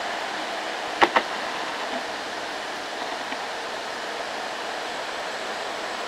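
Steady wash of noise from loaded cargo trucks climbing the road at a distance, with two sharp clicks close together about a second in.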